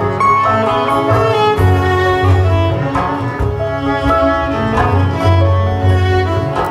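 Acoustic folk string band playing an instrumental passage live: fiddle bowing over plucked upright bass, with mandolin and guitar.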